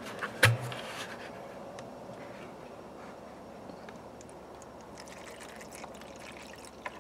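Vinegar poured from a plastic gallon jug into a metal parts tray, a steady trickle of liquid filling the tray. A short knock about half a second in.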